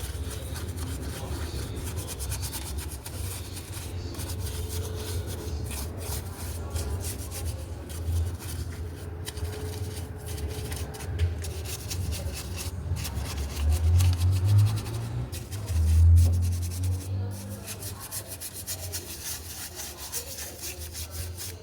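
Continuous scrubbing and rubbing, many quick strokes over a low rumble, as of a brush working grime off a dirty gearbox housing.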